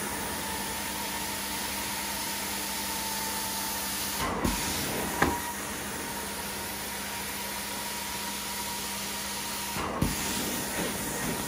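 Carpet-cleaning extraction wand spraying and vacuuming carpet: a steady hiss with a constant drone. A few short louder sounds come about four and five seconds in and again near the end.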